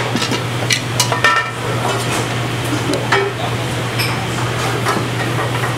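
Stainless steel mixing bowl and metal tongs being handled and set down on a wooden bar: a series of sharp metallic clinks and knocks, most of them in the first second and a half, then single ones near two, three and four seconds in, over a steady low hum.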